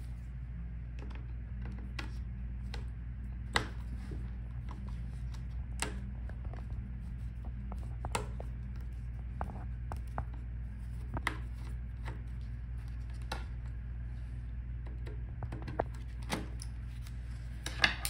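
Scattered small clicks and ticks of a precision screwdriver turning out the tiny screws of a laptop's rear vent cover, at irregular intervals over a steady low hum.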